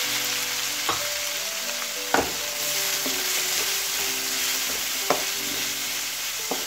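Chopped onions sizzling in hot sunflower oil in a metal kadai as they are stirred, with the spatula knocking against the pan a handful of times.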